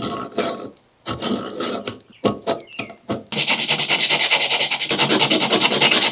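Antler being abraded by hand with a file or rasp. It starts with a few separate scraping strokes, then about three seconds in settles into fast, steady back-and-forth strokes, around six a second.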